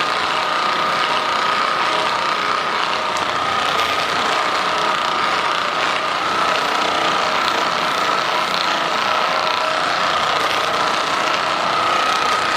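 Handheld percussion massage gun running continuously: a steady motor whine over a fast hammering rattle.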